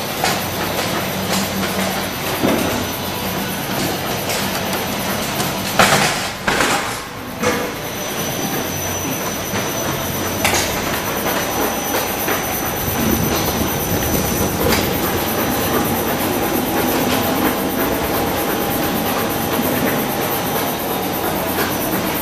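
Burg HKDD-E bin unloader running, its rotating brush roller metering potatoes out of a tipped wooden crate: a steady mechanical rattle and rumble with scattered knocks of tubers tumbling, and a louder clatter about six seconds in.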